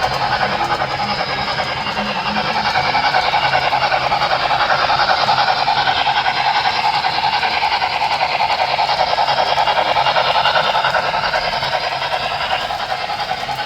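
A model train running on the layout track: a steady rushing of wheels and motor that grows louder through the middle as it passes and eases off near the end.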